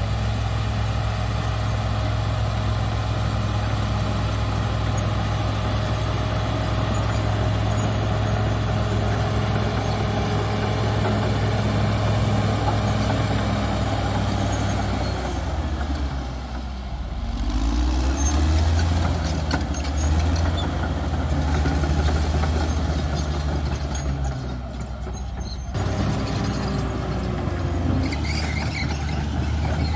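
Cat D6R XL bulldozer's diesel engine running steadily under work. Its engine note drops and then climbs again about halfway through, and once more a few seconds before the end.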